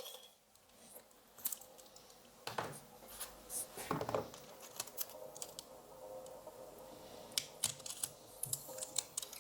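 Protective tape being torn and pressed over a circuit board's connector and plastic parts, to shield them from the rework heat: quiet, irregular crinkles, clicks and short rips.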